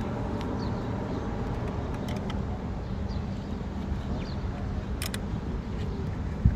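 Nissan Sunny's engine idling steadily. A few light clicks come about five seconds in, and a brief knock comes near the end.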